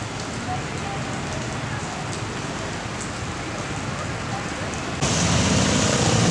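Heavy rain falling steadily, a dense hiss with scattered drop ticks. About five seconds in, the sound jumps abruptly louder and a low engine-like hum comes in.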